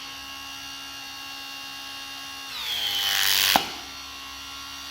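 Makita TC300D 18 V cordless hydraulic crimper's brushless motor and pump running with a steady whine. About two and a half seconds in, the pitch sinks and the sound grows louder as the hydraulic pressure builds. About a second later it ends in a sharp click, and the tool then runs on steadily at its first pitch.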